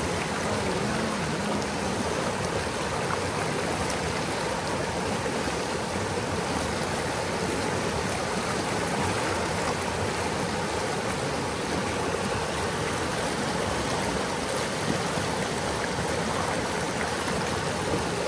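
Steady rushing of a stream's running water.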